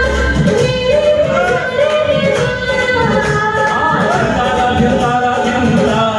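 Hindi film song: a singing voice carrying a melody over an orchestral accompaniment with a steady percussion beat.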